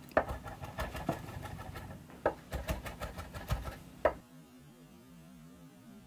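Chef's knife chopping fresh tarragon on a bamboo cutting board, a quick, irregular run of knocks of the blade on the wood that stops about four seconds in.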